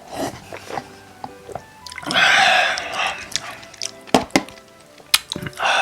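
Eating sounds: a loud, noisy slurp of instant noodles lasting about a second, a few sharp clicks of chopsticks or chewing, and another slurp starting near the end, over faint background music.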